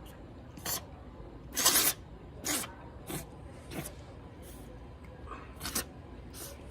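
Cat sneezing repeatedly: about seven or eight short, sharp sneezes roughly every half second to second, the loudest and longest just under two seconds in. The owner puts the sneezing down to dried mucus probably blocking the cat's nostrils.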